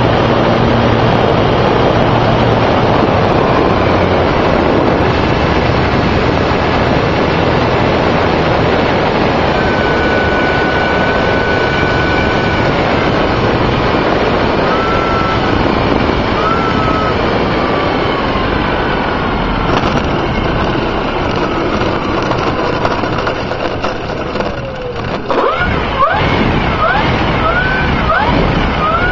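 Onboard sound of a radio-controlled model airplane in flight: wind rushing over the camera and the motor's whine, its pitch gliding up and down with the throttle. Near the end come a few knocks as the plane touches down on grass, followed by short rising whines.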